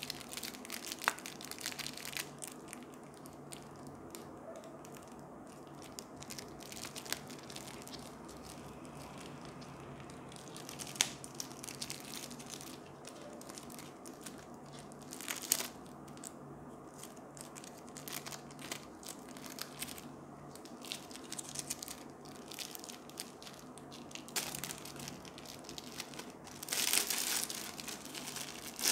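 Thin clear plastic wrapper on a reflective slap band crinkling and crackling as hands handle and straighten the band, with scattered sharp clicks. Near the end comes a longer, louder burst of crinkling as the plastic is pulled off the band.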